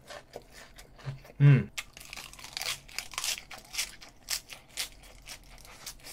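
Close-up crunchy chewing of an air-fried stuffed chili pepper and a bite of crisp lettuce: many short crisp crunches and wet mouth sounds. A short loud 'mmm' hum about one and a half seconds in.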